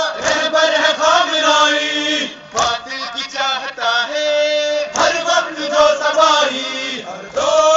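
Men's voices chanting an Urdu noha, a Shia mourning chant, with an occasional sharp slap of hands beating chests in matam.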